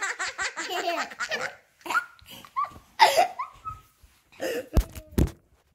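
A small child giggling: a quick run of laughter, then short separate squeals and gasps. Two sharp clicks come near the end.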